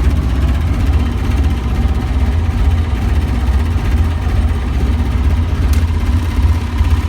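Boat engine running steadily with a low rumble, and one short click about six seconds in.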